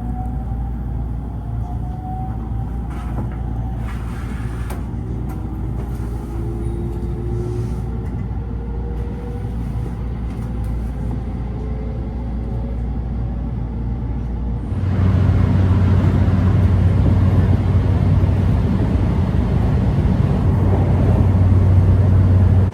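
Electric train running: a steady low rumble with faint rising whines, then about 15 seconds in a sudden change to louder running noise with a steady low hum.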